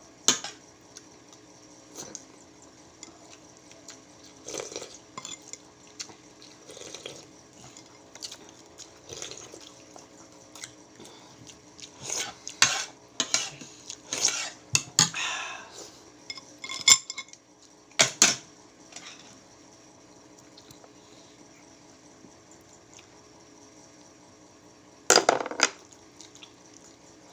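Spoon and fork clinking and scraping on a plate during a meal, in scattered short clicks with a busier stretch of scraping about halfway through and a sharp knock soon after.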